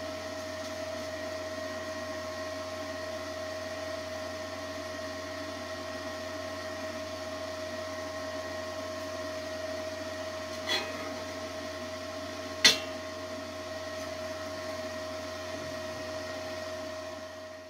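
Steady hum of a fan or small electric motor running, with two short sharp clicks about two seconds apart past the middle.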